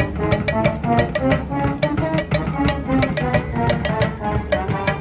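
Live brass band with drum kit playing an upbeat tune: regular drum and cymbal strikes under a brass melody.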